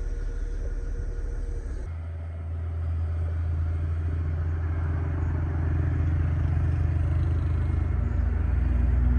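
Excavator's diesel engine running under load, its low drone growing louder from about two seconds in.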